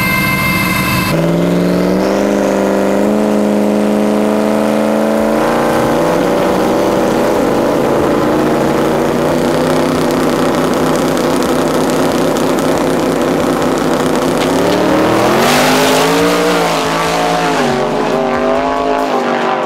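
Drag-racing pickup truck engines running hard on the strip. The engine note jumps in pitch a couple of times early on and wavers up and down near the end.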